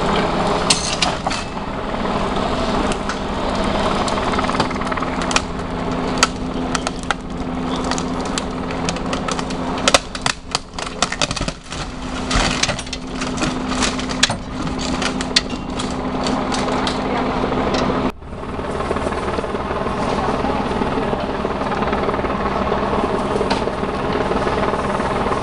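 A vehicle engine runs with a steady low drone while the overturned car is rolled onto its side by the towing crew. A run of metal clanks and knocks comes from about ten to sixteen seconds in. The sound breaks off abruptly about eighteen seconds in, and a steady engine drone goes on after it.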